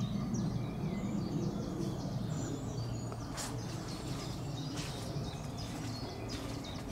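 Small birds singing and chirping in lakeside trees over a steady low rumble of wind, with a few short rustles of leaves and twigs in the middle and later part.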